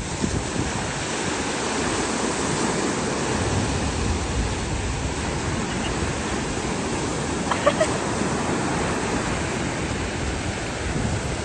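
Surf breaking and washing up on a sandy beach: a steady rush of waves.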